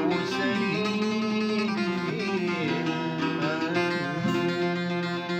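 Two acoustic guitars, a nylon-string classical guitar and a steel-string cutaway acoustic, playing together, strummed and picked with some sliding notes.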